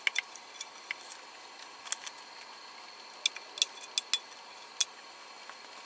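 Irregular sharp clicks and small taps of a paper sheet being swapped on a rose engine lathe's paper chuck, the loudest cluster about three to five seconds in. A faint steady high-pitched whine runs underneath.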